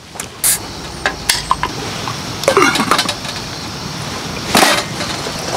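Scattered clinks and knocks of tableware and utensils at a meal, over a steady background hiss.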